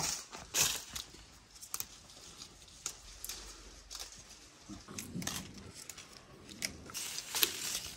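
Leaves being plucked off a small tree's twigs by hand: scattered crisp snaps of stems and rustles of leaves, about one a second.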